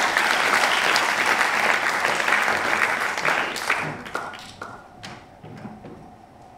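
Audience applauding; the clapping dies away about four to five seconds in.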